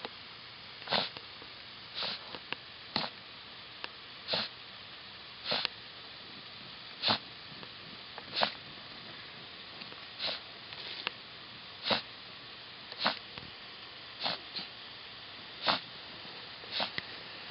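A dog sniffing hard with its nose down in a dirt hole, in short, sharp bursts about once every second or so.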